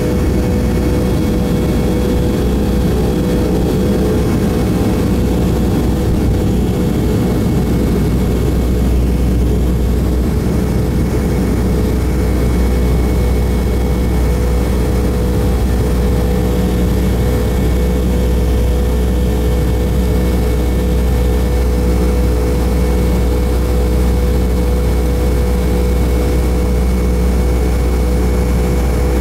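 Boeing 757-200's twin jet engines at takeoff thrust, heard inside the cabin over the wing: loud, steady engine noise with a held mid-pitched tone and a deep rumble. The rough runway rumble of the wheels gives way about seven seconds in as the plane lifts off and climbs.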